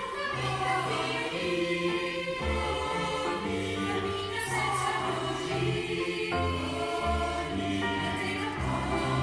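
Mixed choir of men and women singing held notes in several parts, with keyboard accompaniment.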